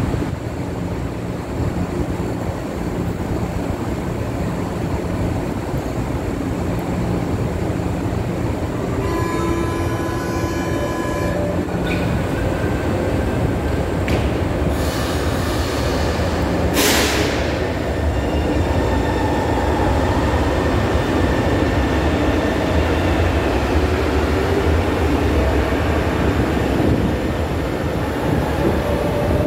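São Paulo Metro train at a platform: a door-closing warning tone sounds for about two seconds, a brief hiss follows several seconds later, then the train pulls out with a rising electric motor whine over a steady rumble of wheels.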